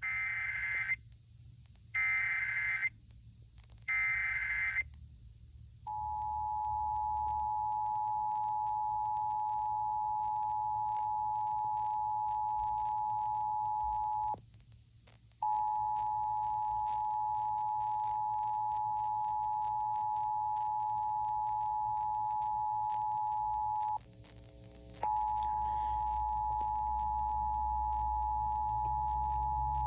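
Emergency Alert System monthly test broadcast on FM radio: three one-second bursts of SAME header data tones, then the EAS two-tone attention signal, a steady two-pitch tone, starting about six seconds in and breaking off twice for about a second.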